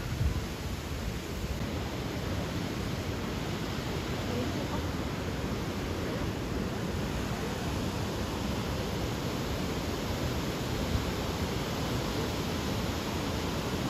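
Steady rushing roar of a broad, heavy waterfall: an even wash of falling water with no breaks.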